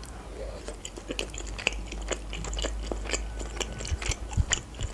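Close-miked mouth sounds of a person chewing a mouthful of fusilli pasta: an irregular run of small clicks and smacks.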